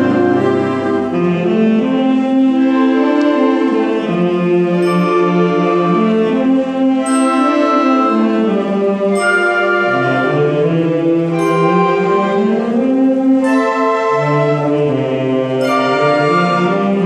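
High school concert band playing: saxophones, clarinets and flutes holding sustained chords over a moving bass line. A short high ringing note is struck about every two seconds from about five seconds in.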